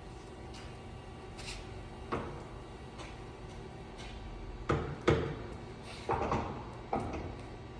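Mazak Hercules Ajax manual lathe humming steadily while its headstock speed-change levers are shifted, giving sharp metal clunks: one about two seconds in and a cluster of four or five between five and seven seconds.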